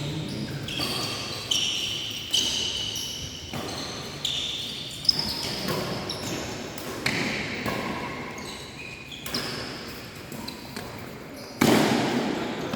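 Badminton play in an echoing sports hall: sharp racket hits on the shuttlecock every second or two, with short high squeaks of players' shoes on the court between them, and a louder burst near the end.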